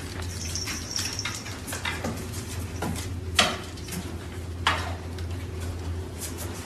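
Light clicking and clattering over a steady low hum, with two sharper knocks about three and a half and nearly five seconds in.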